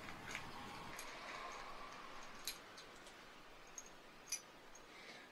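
Faint scraping and small metallic ticks of a T20 Torx screwdriver turning out the small screws that hold the shoes on a rifle scope mount, with a few sharp ticks in the second half.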